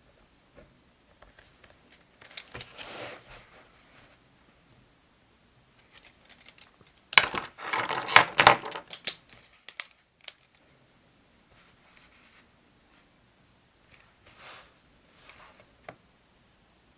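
Stationery being handled on a desk: rustling with small clicks and clatters. A short flurry comes about two seconds in and a louder, denser one about seven to nine seconds in, followed by scattered ticks.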